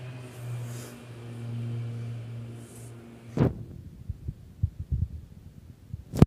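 Kitten purring close to the microphone, a low steady rumble that swells and fades with its breathing and stops about three and a half seconds in. Then come a few low bumps and knocks and a sharp click near the end, the loudest sound.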